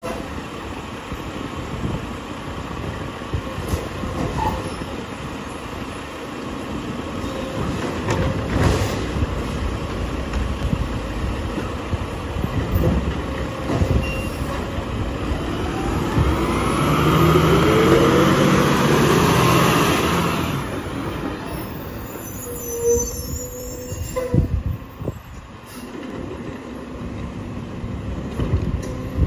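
Mack LR garbage truck with a Labrie Automizer automated side-loader at work: the diesel engine runs steadily, then revs up and back down about two-thirds of the way through as the hydraulic arm works. A few sharp knocks from the arm and carts come about a third of the way in and again toward the end.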